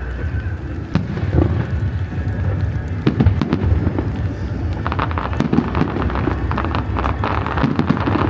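Fireworks bursting: single booms about one and three seconds in, then from about five seconds a dense crackle of many small cracks from crackling shells.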